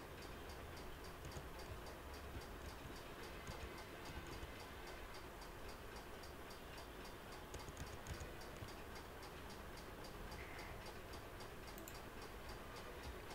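Faint, steady ticking at an even pace over a low room hiss.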